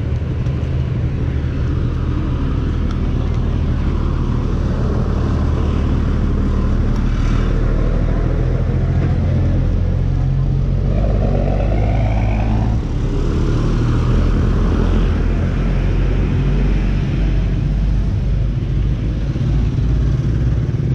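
Motorcycle engine running steadily at low speed in slow traffic, with another engine rising in pitch about halfway through.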